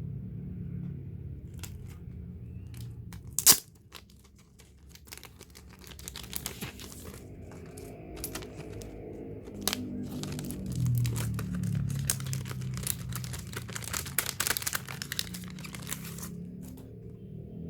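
Merchandise packaging being torn open and crinkled by hand, with one loud sharp snap about three and a half seconds in and then a long run of crackling and rustling.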